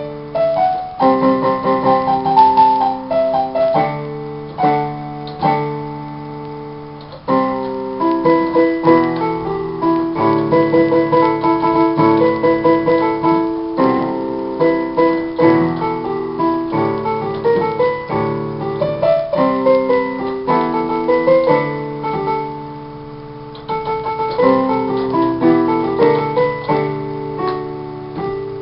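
Portable electronic keyboard played in a piano voice: a solo piece of chords under a melody line, taken a little fast for the song by the player's own account. Twice a held chord is left to fade, about seven seconds in and again about two-thirds of the way through.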